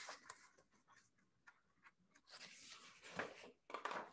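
Paper rustling and handling noise as the pages of a picture book are turned and the book is moved about, in a few short scratchy bursts, the loudest a little after three seconds in.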